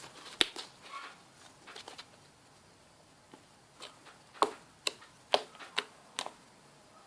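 Fluffy slime made with glue, detergent and shaving foam being poked and squeezed by hand, giving a string of short, sharp sticky pops and clicks: one about half a second in, then about five more in quick succession near the end.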